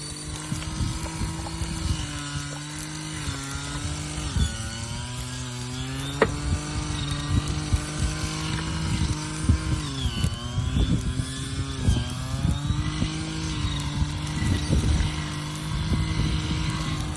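A motor or engine running steadily with a low hum. Its pitch dips and comes back up twice, once about four seconds in and again about ten seconds in.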